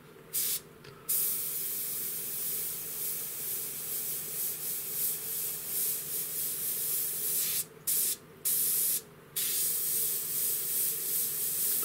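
Gaahleri Ace airbrush hissing as it sprays a fine line of paint, turned down for detail work. The air cuts off briefly twice in the first second and twice more around eight to nine seconds in, as the trigger is let go and pressed again. A faint steady hum runs underneath.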